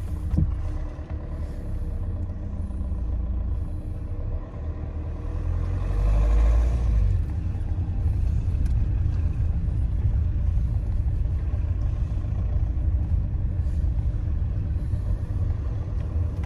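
A car driving slowly, heard from inside the cabin: a steady low rumble of engine and tyres that grows louder for a couple of seconds about five to seven seconds in.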